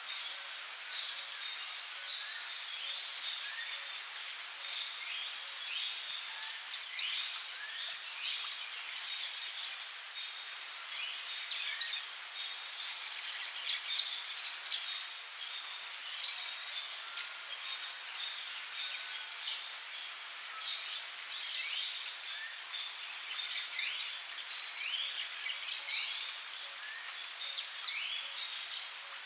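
Rainforest insects and birds: a steady high insect drone, a loud high double buzz that repeats four times about every six to seven seconds, and many short quick bird chirps scattered through it.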